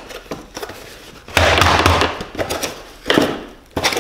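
Handling noise as a new shock absorber is freed from its plastic wrapping: small clicks, then two loud rustling, scraping bursts, the first and longer about a second and a half in, the second near the end.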